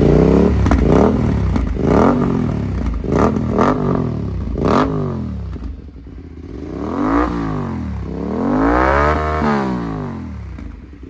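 Aprilia RS 457's parallel-twin engine revving through an Akrapovič double-barrel slip-on muffler: a run of quick throttle blips over the first five seconds, then two longer revs that rise and fall, the second held higher, before it settles back toward idle.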